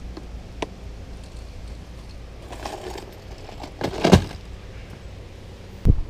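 Clear plastic tackle box of loose hooks being handled: small clicks and rattles, a clatter about two and a half seconds in, and a solid knock about four seconds in as the box is set down in the boat. A short thump just before the end.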